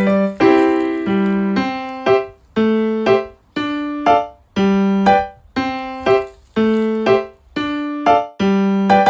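Background music: a light electric-piano tune, single struck notes that each die away, in a steady bouncy rhythm of about two a second.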